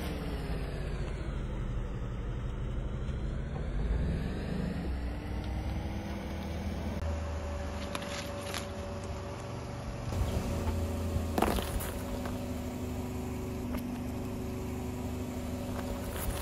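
Car creeping at low revs over fruit on asphalt, the engine a steady low rumble that drifts in pitch early on, with a few short crunches as the tyre crushes the fruit.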